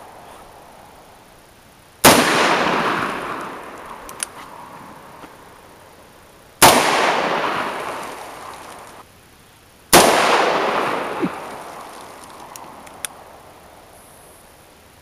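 Three single gunshots a few seconds apart, each ringing out in a long fading echo, with a few faint clicks between them.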